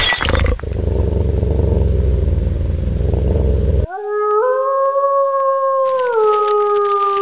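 A sudden crash, then a low rumbling noise for about three seconds. About four seconds in, a single long wolf howl rises, holds, and slides down in pitch near the end.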